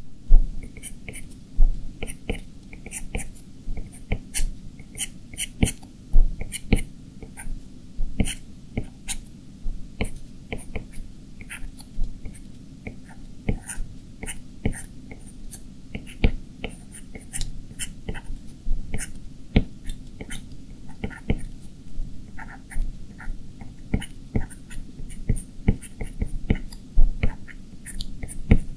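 A stylus tapping and stroking on the glass screen of an iPad Pro while drawing: irregular quick clicks, several a second, over a steady low hum.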